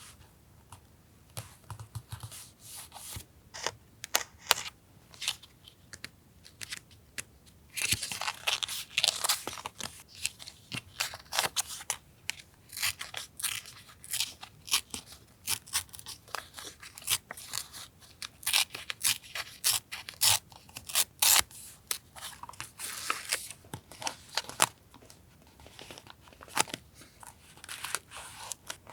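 Scissors cutting paper: crisp snips and paper rustles, a few scattered at first, then a dense run of quick cuts from about eight seconds in, thinning out near the end.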